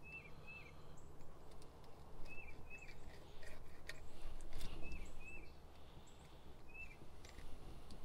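Fillet knife cutting and scraping along a crappie on a glass cutting board, making scattered clicks and scrapes. A bird calls throughout in short chirps, mostly in pairs, about every two seconds.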